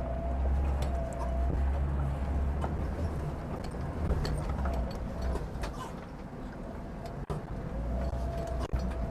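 Inside the cabin of a 2.4-litre 4WD Liebao Black King Kong SUV crawling over rough ground: a steady low engine and drivetrain rumble with scattered short knocks and creaks from the chassis. The driver puts the knocking down to a slightly noisy left shock absorber that needs replacing.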